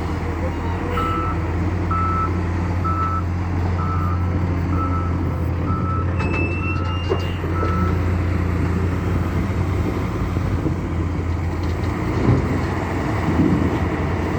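Develon heavy construction machine's diesel engine running steadily while its reversing alarm beeps eight times, about once a second, then stops. A brief higher tone sounds near the last beeps.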